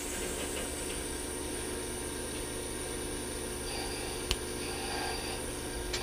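Steady hum and hiss of a workshop machine running, with one sharp click about four seconds in.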